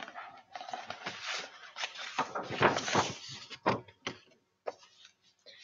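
Paper rustling and handling noise as the pages of a picture book are turned. It is loudest about two to three seconds in, then breaks into a few short rustles.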